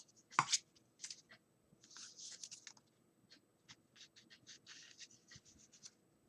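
Handmade paper greeting card being handled: faint paper rustling and scraping with scattered soft ticks, one a little louder about half a second in.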